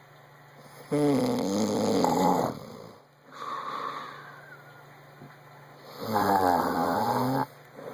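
A man snoring loudly in his sleep: two long snores about five seconds apart, each followed by a quieter, higher breath sound.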